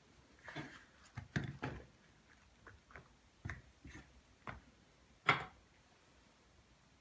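Green peppers being placed by hand into a round metal baking tray: a string of soft taps and light knocks, the loudest one a little after five seconds in.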